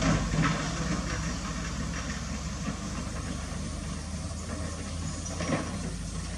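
Diesel engine of a loaded dump truck running steadily as it pulls away slowly on a gravel road. A few knocks come through near the start and again about five and a half seconds in.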